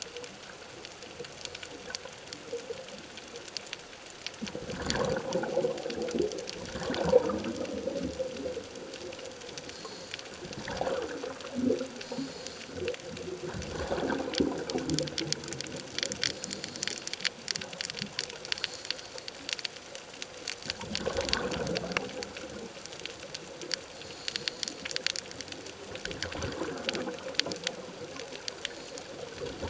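Underwater sound through a camera housing: a scuba diver's exhaled regulator bubbles gurgling in bursts every few seconds, over a continuous faint crackle of clicks.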